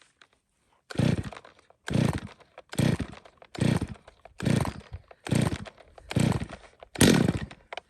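Stihl 021 two-stroke chainsaw being pull-started cold on full choke: eight quick rasping pulls of the recoil starter cord in a steady rhythm, the engine not catching. On the last and loudest pull it briefly tries to fire.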